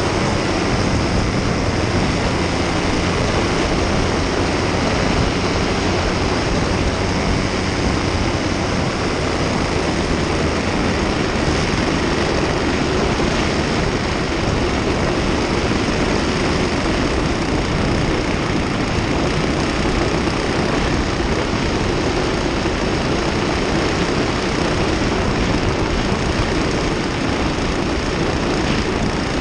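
Paramotor engine and propeller running steadily at flight power, a constant drone with rushing air noise over it.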